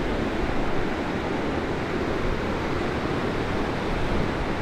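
Steady rush of a small river's fast water and riffles, an even noise with no breaks.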